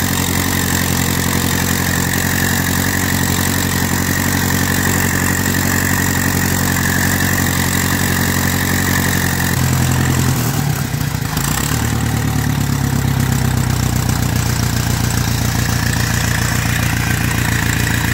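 1952 Ferguson TEA-20 tractor's four-cylinder overhead-valve petrol engine running steadily, heard from the driver's seat. Its note shifts about ten seconds in, then holds steady again.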